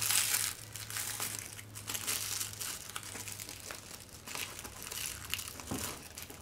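Plastic-wrapped shipping parcel crinkling and rustling in irregular bursts as it is handled and cut open with scissors.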